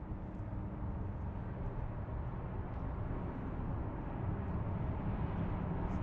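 Steady road and engine noise heard from inside a moving car, a low rumble that grows slightly louder.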